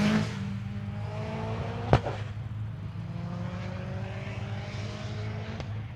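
Hillclimb competition car's engine accelerating up the hill, its pitch rising steadily through one gear, then again through the next, over a steady low hum. A single sharp crack about two seconds in, at the change between the two rises.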